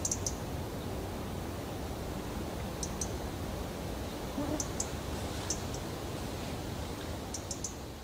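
European robin giving sharp 'tic' alarm calls, short high clicks in twos and threes, about a dozen in all, over a steady low background rumble. The robin is agitated by a person close by.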